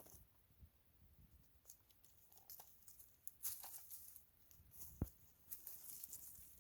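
Faint rustling, scratching and crackling of chickens foraging through garden litter, with scattered small pecking clicks and one sharp tap about five seconds in.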